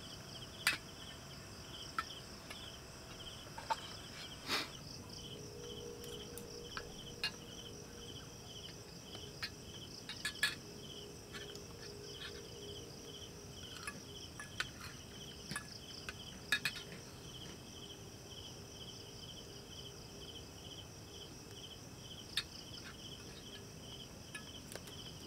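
Crickets chirping in a steady pulsing chorus, a few pulses a second, with scattered sharp clicks and clinks of spoons on metal plates.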